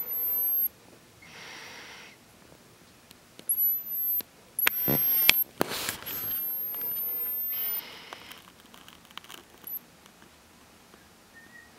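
A camera's lens motor whining in short high-pitched spells as it hunts for focus. Each spell starts with a brief upward glide and then holds steady. A few sharp handling clicks come in the middle, and soft breaths sound close to the microphone.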